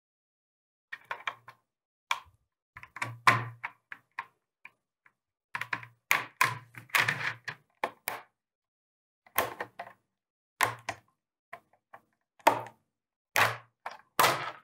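Hard plastic shell of an OtterBox Defender iPad case being unclipped and prised apart by hand: an irregular run of clicks and snaps as its clips let go, with some duller knocks of the plastic parts on the table.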